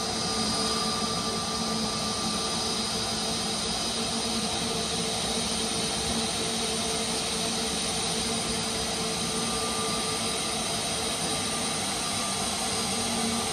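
Jet engines of an Airbus A320-family airliner running at low taxi power: a steady rush of noise with a steady whine over it.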